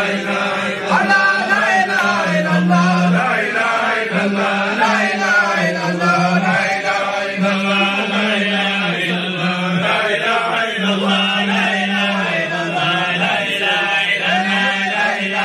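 A group of men chanting dhikr together in unison: a repeated phrase with long held low notes.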